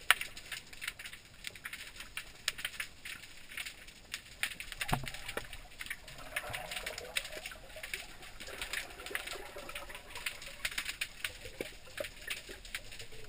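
Underwater ambient crackle heard through a GoPro's waterproof housing: a dense, irregular stream of fine clicks, with one low knock about five seconds in.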